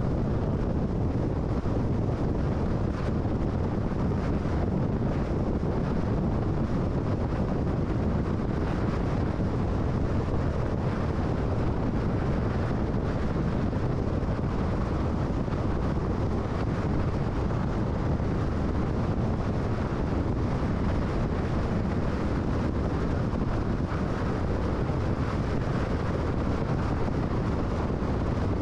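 Steady tyre and wind noise of a car cruising at highway speed, an even rush with no changes.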